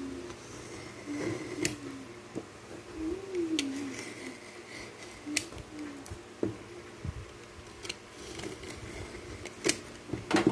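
Snap-off utility knife slitting packing tape on a cardboard box, with scattered sharp clicks and taps from the blade and from handling the box. A faint wavering low tone runs under the first half.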